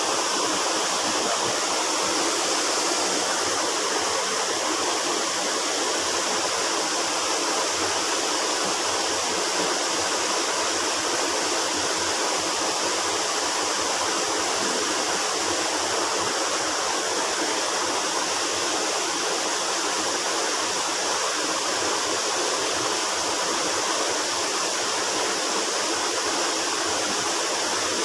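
Steady rush of a small river's flowing water, an even hiss that does not change.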